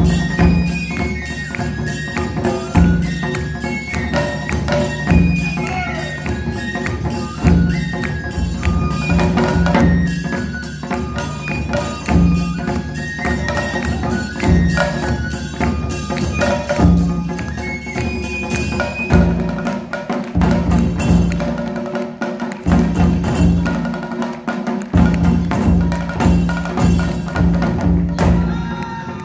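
Live Japanese taiko ensemble: shoulder-slung barrel drums beating a steady driving rhythm, with a Japanese bamboo flute playing a quick melody of short high notes over it. The flute drops away about two-thirds of the way through, leaving the drums.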